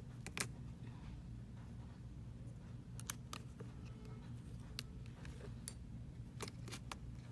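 Small sharp clicks and light scrapes of a thin razor blade prying between metal parts of an iPhone X to free its back camera. The clicks come singly and in pairs at irregular intervals over a faint low hum.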